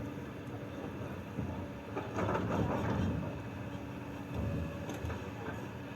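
Heavy construction machinery engine running steadily, with a louder, noisier burst about two seconds in that lasts roughly a second.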